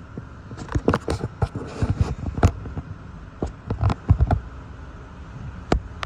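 Hurricane rain squall heard from inside a car: a steady hiss of wind and rain, broken by gusty rumbles on the microphone and irregular sharp taps and knocks. These come in two clusters in the first two-thirds, with one more knock near the end.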